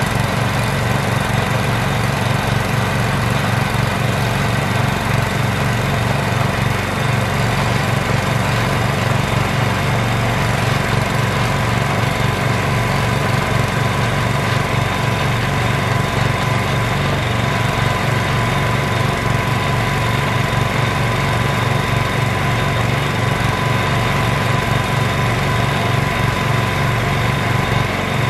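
Small engine powering a homemade hydraulic water-well drilling rig, running steadily with a fast low pulsing and a thin steady whine.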